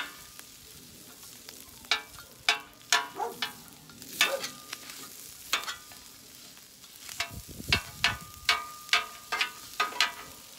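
Metal spatulas chopping and scraping rice on a hot flat-top griddle: sharp, irregular clacks of steel on the griddle plate over a light frying sizzle. The clacks come quicker from about two thirds of the way in.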